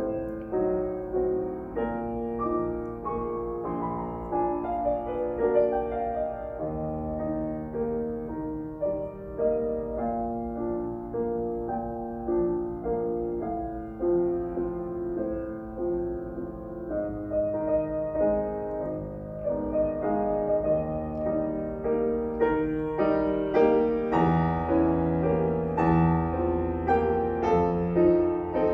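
Solo grand piano playing a flowing melody over chords. The playing grows fuller about three-quarters of the way through, with low bass notes coming in.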